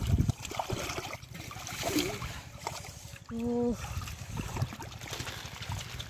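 Hands sloshing and splashing in shallow muddy water while grabbing a catfish, an irregular wet churning.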